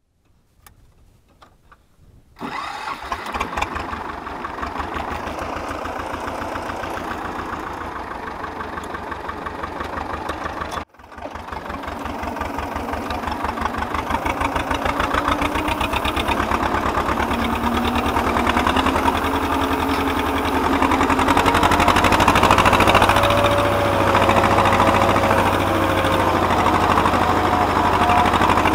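Vladimirets T-25 tractor's two-cylinder air-cooled diesel running under load while ploughing, heard from the driver's seat with a steady, even firing beat. After a couple of seconds of faint clicks, the engine sound comes in abruptly. It breaks off for an instant about eleven seconds in, then grows slowly louder, with a faint whine that shifts in pitch in the second half.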